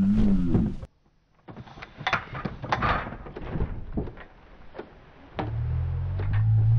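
Irregular sharp knocks and rustling as an Abyssinian cat scrambles about a high shelf and bedding. About five seconds in, background music with a steady low tone comes in.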